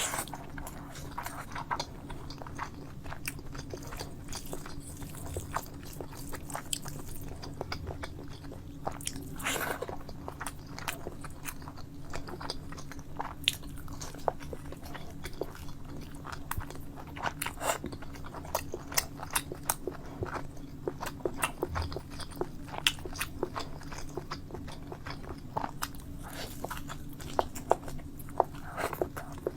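A person eating, biting and chewing food in a dense, irregular run of sharp clicks, with a steady low hum underneath.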